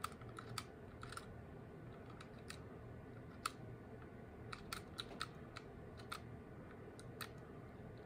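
Brinks resettable four-dial combination padlock, its number wheels rolled by thumb to enter the combination: a scatter of small, sharp, uneven clicks, bunched a little past the middle.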